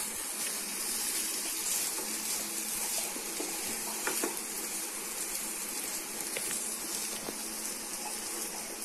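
Pasta, egg and masala sizzling in a non-stick frying pan while being stirred with a wooden spatula, a steady hiss with a few light taps and scrapes of the spatula.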